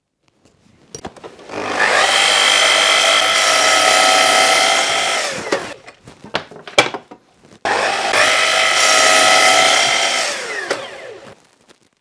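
Electric power saw cutting plywood twice, each run about four seconds long, the motor whine falling in pitch as it winds down after each cut. A few sharp knocks come between the two cuts.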